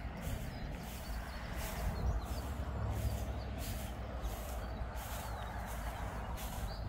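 Footsteps at a steady walking pace, a soft swish about every half second or more, over a low wind rumble on the microphone, with a few faint bird chirps.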